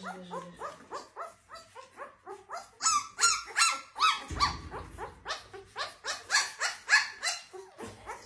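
A litter of young puppies yelping and squealing in short, high, falling cries, several a second and overlapping. There is a brief low rustle about four seconds in.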